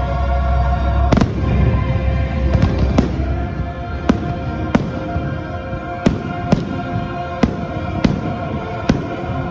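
Aerial fireworks bursting in a string of about ten sharp bangs, a second or less apart, over the show's music.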